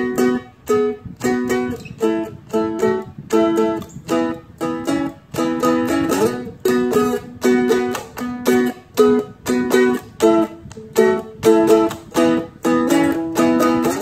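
Seagull Merlin M4 dulcimer strummed with a pick: a riff of short, choppy chords in B, about two a second, with a slide up into a chord about six seconds in.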